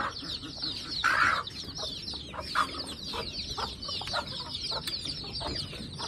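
A brood of Aseel chicks peeping without a break in many quick, high cheeps. A louder hen call cuts in about a second in.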